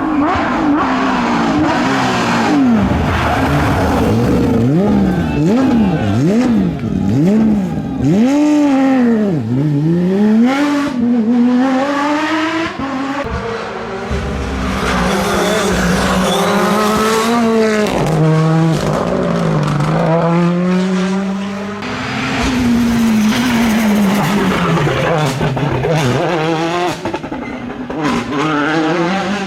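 Rally car engines revving hard, the pitch rising and falling sharply again and again through gear changes and lifts as the cars are driven flat out past the spectators, one car after another.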